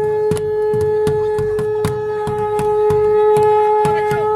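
Conch shell (shankha) blown in one long, steady, loud note. Under it a drum is beaten at an even pulse of a little over two strokes a second.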